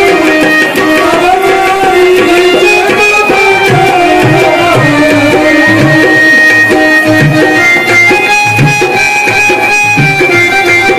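Music: tabla drumming under a sustained melody line of held notes that change pitch in steps.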